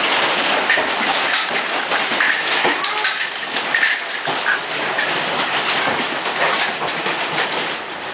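Golf-ball-size hail pelting the house, heard from indoors: a dense, steady clatter of many hard impacts.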